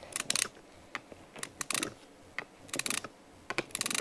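Kung Zhu battle hamster toy swiped back and forth along the ridged power-up stripes, rattling over the ridges in about four quick bursts of clicks. This is the toy being charged up.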